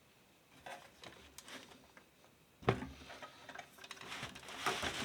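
Light clicks and one sharp knock about three seconds in, from the parts of a desktop computer case being handled while it is opened up.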